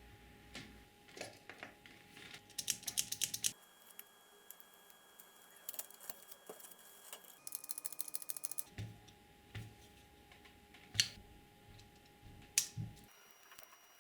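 Irregular clicking and rattling of small hard objects, with dense rattly bursts about a third of the way in and again past the middle, then a few single sharper clicks. The sound comes in short takes that cut abruptly from one to the next.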